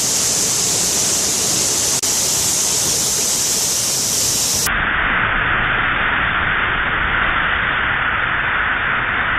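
Steady rush of a waterfall, an even hiss of falling water. About halfway through it cuts abruptly to a duller sound with the high end gone.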